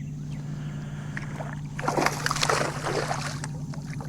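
Water splashing hard for about a second and a half midway, as a hooked largemouth bass thrashes at the surface while it is landed beside the kayak, over a steady low hum.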